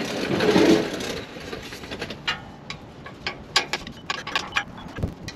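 Hand ratchet clicking in short, irregular runs of ticks while working the 3/8 strap bolts on the driveshaft's rear U-joint, after a brief scraping rustle at the start.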